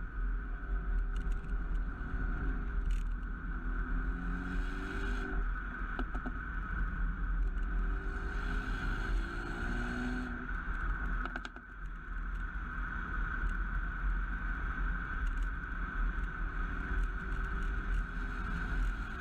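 Mercedes-AMG A35's turbocharged four-cylinder engine running as the car drives, its note rising and falling with the revs over a steady low rumble. A few sharp cracks come through, the clearest about eleven seconds in as the engine note briefly drops away.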